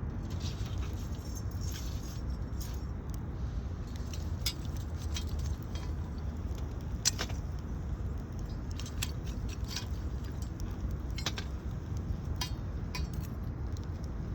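Wood fire crackling, with irregular sharp pops scattered through it over a steady low rumble; the loudest pop comes about seven seconds in.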